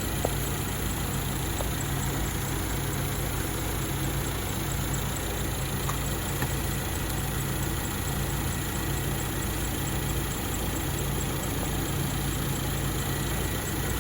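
Mercedes-Benz CLA 250's turbocharged four-cylinder engine idling steadily with the A/C running, during an A/C refrigerant recharge.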